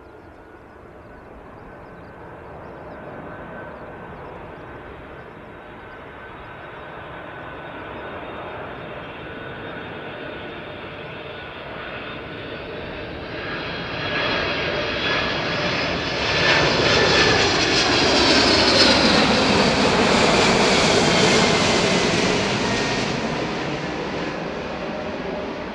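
Boeing 747-400 jet airliner on final approach, its four engines growing steadily louder with a high whine. It passes close overhead about two-thirds of the way through, the whine dropping in pitch, and the sound begins to fade near the end.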